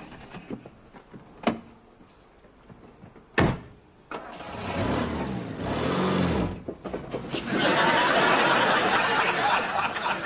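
A car engine in trouble: a sharp bang, then the engine's pitch rises and falls twice, followed by loud steady noise.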